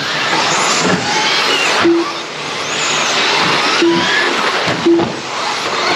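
Several electric RC racing trucks running on the track, their brushless motors whining up and down in pitch over a constant noise of tyres and running gear. A few short low beeps sound during it.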